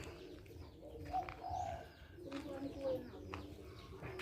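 A dove cooing in short, low note groups, about a second in and again around two and a half seconds in, with small birds chirping faintly.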